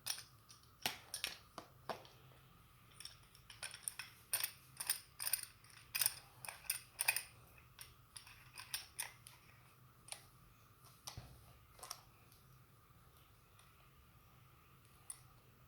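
Irregular run of small sharp clicks and snips from hand tools at work on an opened laptop charger, busy for the first several seconds and then thinning out to a few isolated clicks.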